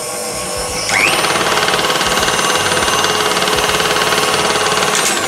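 KitchenAid Classic stand mixer running with its nylon worm gear damaged by an overloaded bowl: the motor runs while the drive makes very unpleasant sounds, a fast, harsh rattle. About a second in it gets louder with a short rising whine.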